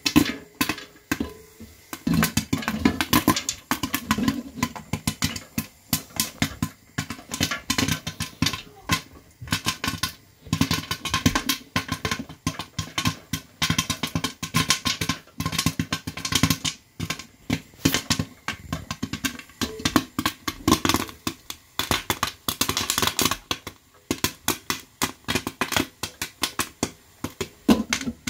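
Popcorn kernels popping hard and fast in a covered pan, a dense irregular run of sharp pops and clicks against the glass lid, many a second, thickening about two seconds in.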